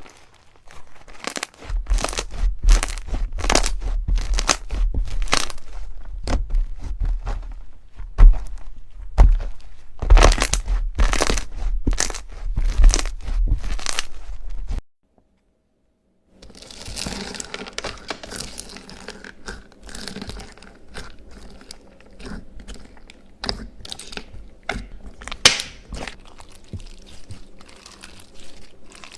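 Slime being squeezed and pressed by hand, giving a run of sharp clicks and pops over a low rumble. It cuts out about halfway through, then gives way to a denser, finer crackling.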